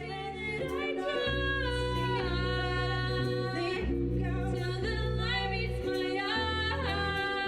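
Music: a woman singing long held notes that slide between pitches, over a steady bass backing.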